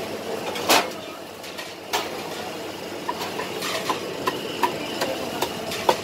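Kitchen clatter at a busy food stall: a sharp knock under a second in and another about two seconds in, then a run of light clinks of dishes and utensils, over a steady background din.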